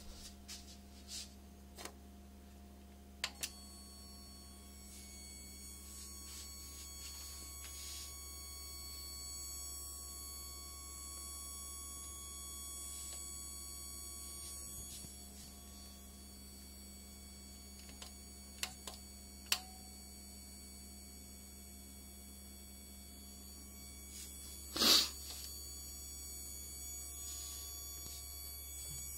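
Strange electrical noise from a desktop PC that will not power on: a high-pitched whine of several steady tones sets in about three seconds in over a low hum, with scattered faint clicks. There is one louder short noisy burst about 25 seconds in.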